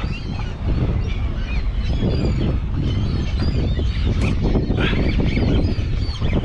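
A flock of seabirds calling over a frenzy of feeding striped bass, many short screechy calls overlapping throughout, over a steady rumble of wind buffeting the microphone.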